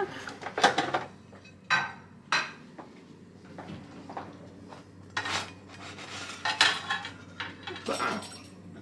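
Dishes and kitchen utensils clattering: a string of separate knocks and clinks, roughly one every second or so.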